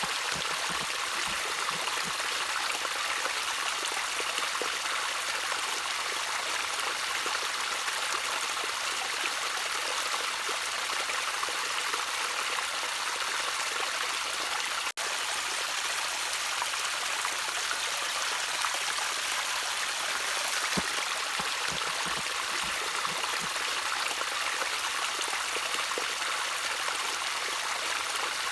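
Gentle trickling water, a steady watery hiss sitting mostly in the higher pitches. It is broken by a split-second dip in level about halfway through.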